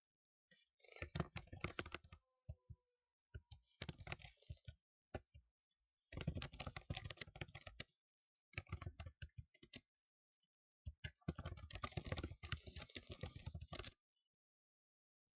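Typing on a computer keyboard in quick bursts of rapid key clicks, each lasting one to three seconds, with short pauses between them.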